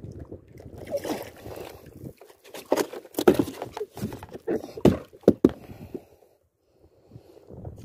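Choppy sea water slapping against a small boat's hull, with irregular knocks and rubbing from handling close to the microphone. The sound drops out briefly near the end.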